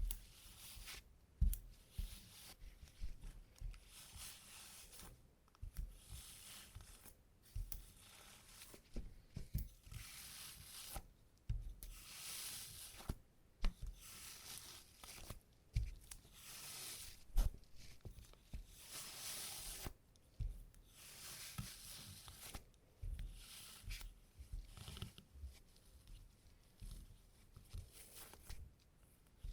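Sticky adhesive tape pressed onto cloth trousers and peeled off again, over and over, each peel a crackling rip of about a second, with soft dabs between, as it lifts embedded cat hair from the fabric.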